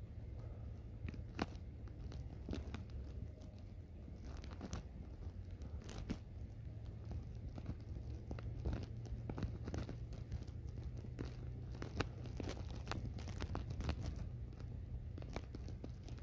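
A camel spider digging in dry, gritty soil under a rock, its legs scraping and kicking loose grit and pebbles: an irregular run of small crackles, crunches and scrapes, several a second, over a low steady rumble.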